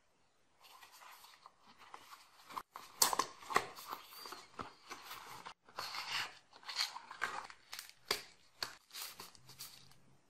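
A small cardboard box being opened by hand: irregular rustling, scraping and snapping of card flaps and the card insert, loudest about three seconds in.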